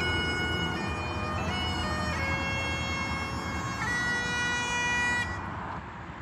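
Bagpipes playing a slow melody over a steady drone, the tune closing on a long held note and stopping about five seconds in.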